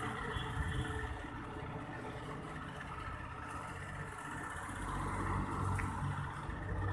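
Low, steady hum of a motor vehicle's engine on the road, growing louder about five seconds in as it draws nearer.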